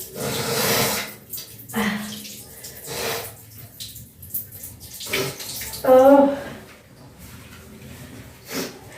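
Water from a tap splashing into a basin while someone rinses and blows a runny nose, with several short noisy blows and a brief vocal sound about six seconds in.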